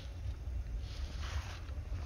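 Wind buffeting the microphone as a steady low rumble, with a brief rustle about a second in.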